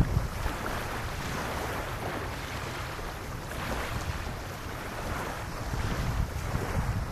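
Gentle waves lapping on a sandy shore, soft washes rising and falling every couple of seconds, with wind buffeting the microphone in a low rumble. One short bump right at the start.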